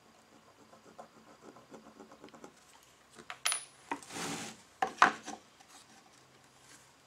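Marker drawn in short strokes across an oak whiskey-stave pen blank. Then the blank is set down on a table-saw sled with a clatter, slid across it with a scrape of about a second, and knocked against the fence with a couple of sharp knocks, the loudest sounds here.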